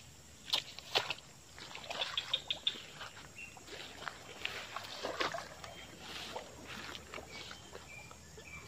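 Rustling and splashing as someone moves through tall wet grass at the edge of shallow swamp water, with a run of small sharp clicks and snaps, and faint short high chirps in the background.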